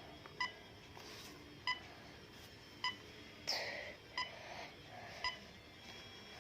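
BlackBerry phone tone of short beeps at one pitch, five of them about a second apart, with a brief hiss about halfway through.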